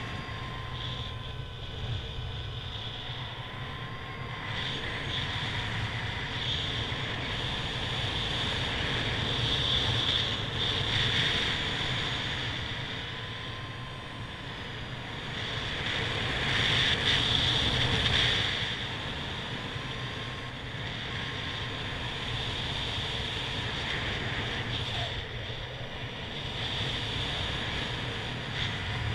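Wind rushing over the microphone of a paraglider in flight: a steady airflow hiss over a low rumble, swelling louder twice, about a third of the way in and again just past the middle.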